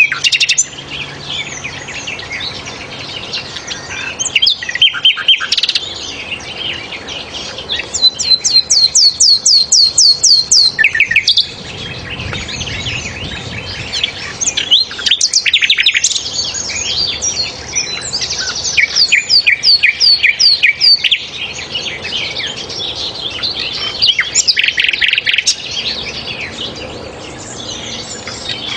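Sikatan londo (a flycatcher) singing: bursts of high, sharp whistled notes and rapid trills, repeated over and over with short gaps between phrases.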